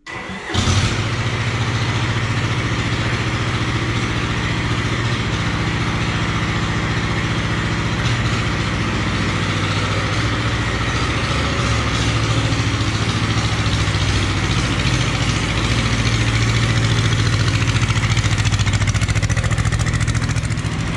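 Small Kubota diesel engine in a Sears Suburban 12 hydrostatic garden tractor starts about half a second in, then runs steadily, a little louder toward the end. This is the first run of the newly swapped-in engine.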